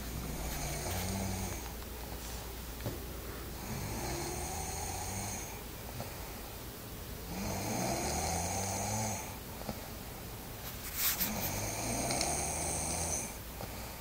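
A woman snoring steadily: four long snores, one about every three and a half to four seconds, with a short click just before the last one.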